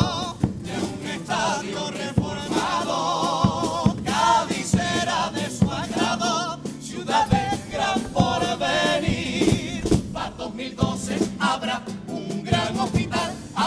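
A carnival chirigota's chorus of men's voices singing in unison with vibrato, over a steady drum beat.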